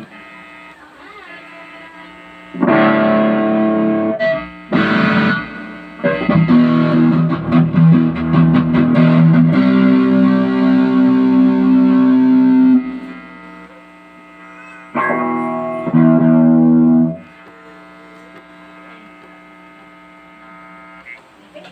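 Electric guitar played through a Zoom G5n multi-effects processor: loud chords struck and held in four passages, with quieter notes ringing between them.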